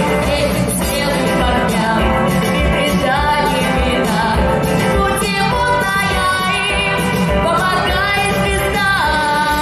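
A woman singing a slow melody with vibrato and pitch glides over a full band accompaniment with a steady beat.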